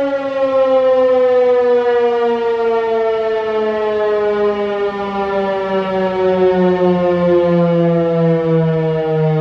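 Federal Signal 508 dual-tone rotating electromechanical warning siren, its pitch falling steadily as it winds down. The sound swells and fades gently as the siren head turns.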